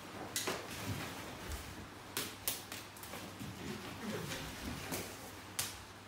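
Children performing the kyokushin kata Saiha on foam mats: scattered sharp snaps of karate uniforms on strikes and soft thuds of feet, at irregular moments.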